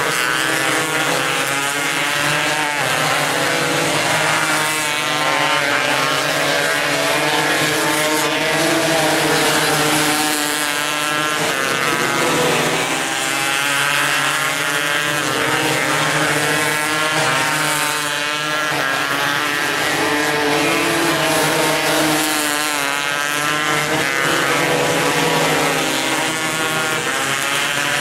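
Several 270-class micro sprint car engines racing on a dirt oval, running high and loud, their pitch repeatedly rising and falling as the cars accelerate down the straights and lift into the turns.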